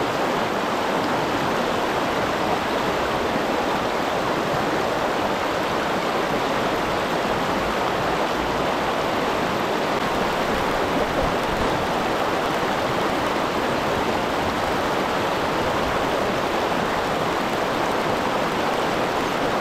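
Mountain stream water rushing in a steady, unbroken wash.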